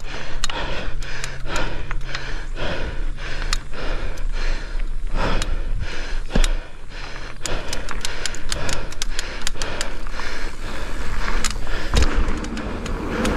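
Mountain bike rattling and clattering as it rolls fast down a rough dirt trail, with many sharp knocks from the bike over bumps and the rider breathing.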